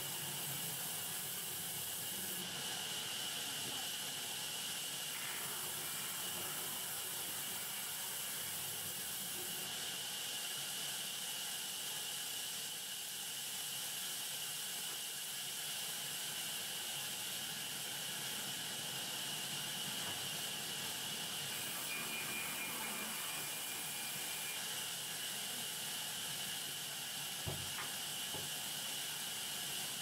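Large sawmill band saw running, giving a steady high hiss. A single sharp knock near the end.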